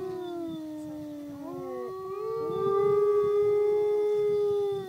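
Gray wolf howling. One long howl slides slowly down in pitch, and about a second and a half in a second howl rises over it, then holds steady and louder until it stops just before the end.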